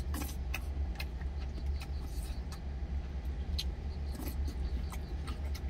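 Someone eating hot doenjang-jjigae from an insulated lunch container: scattered light clicks of a spoon on the container and short sipping sounds. A steady low hum runs underneath, inside the truck cab.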